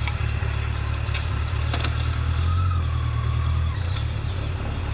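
Yamaha Diversion motorcycle engine idling steadily, growing louder for about a second midway as the bike moves off, with a few light clicks.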